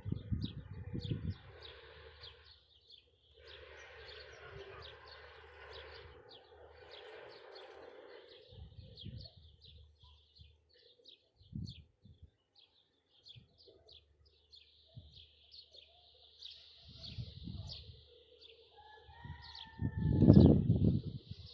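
Many small birds chirping, rapid short high calls running on throughout, with scattered dull low thumps. Near the end a louder low sound comes in with a short call.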